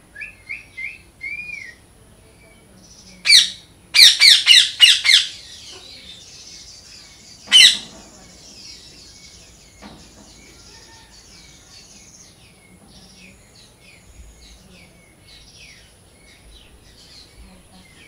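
Parrot calling: a few short chirps, then loud harsh screeches, one at about three seconds, a quick run of five just after, and one more near eight seconds, followed by faint scattered chirps.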